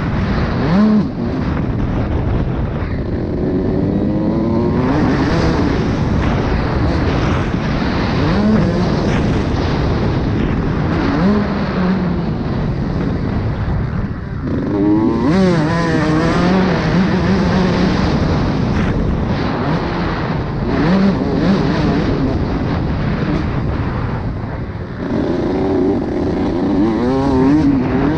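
Motocross bike engine heard onboard at race pace, its pitch repeatedly rising and dropping as the rider opens the throttle and shifts, over steady wind and track noise.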